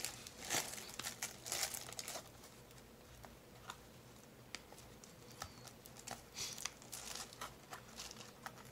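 Plastic shrink wrap on a trading-card booster box crinkling and rustling as hands turn and handle the box: a busy spell of crinkling in the first two seconds, then scattered light crackles, with more handling around six to seven seconds in.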